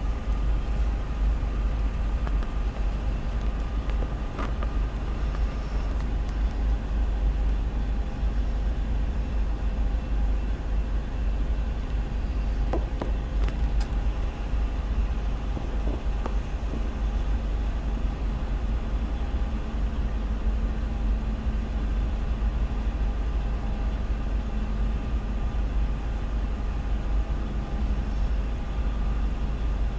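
A freight train of tank cars rolling steadily past, heard muffled from inside a car as a constant low rumble. A few faint clicks come through, about four seconds in and again around thirteen and sixteen seconds.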